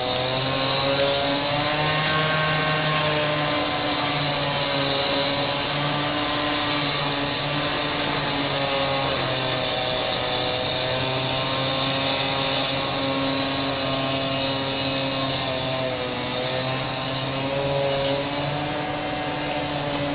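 Concrete saw cutting a stone floor, running continuously with a machine tone whose pitch wavers and dips now and then, over a steady high grinding hiss from the blade in the stone.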